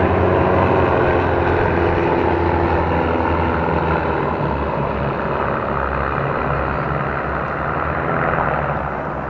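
Aircraft engine drone as a display plane flies past, steady and loud, its pitch sinking slightly near the start.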